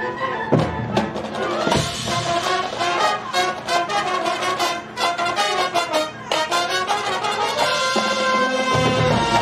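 High school marching band playing: brass with percussion hits through a fast-moving passage, then the brass settles onto a long held chord for the last second or two.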